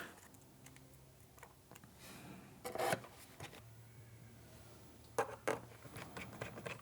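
Quiet handling noises from a laptop being moved about after reassembly: a short scrape about three seconds in, then two light clicks, with a faint low hum in between.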